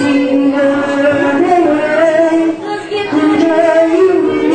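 A female voice singing a melody in long held notes, with a short break between phrases about two and a half seconds in.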